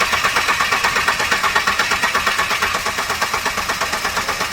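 Common-rail diesel engine cranking on its starter motor with an even pulsing several times a second, not catching: only injectors 1 and 2 are plugged in while the rail fills with diesel.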